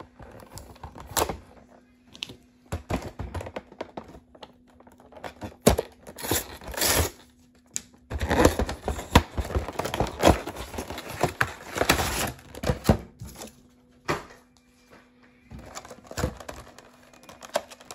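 Tape and anti-theft stickers being torn off a sealed cardboard collection box and its plastic packaging: irregular tearing and crinkling with small knocks and clicks, busiest and loudest in a long stretch about halfway through.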